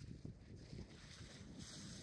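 Faint wind buffeting the microphone as a low, uneven rumble, over a soft steady hiss of sea washing on the rocks.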